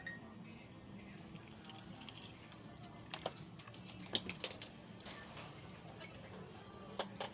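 Irregular light clicks and taps from hands and small tools handling an opened-up laptop, mostly in the second half, over a steady low background hum.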